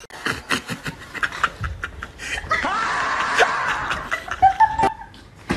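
Snickering laughter in short breathy bursts, with a voice sounding in between.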